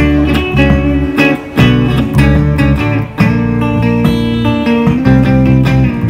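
Electric guitar and bass guitar playing an instrumental passage live. The guitar strums chords over changing bass notes, coming in suddenly and loudly at the start.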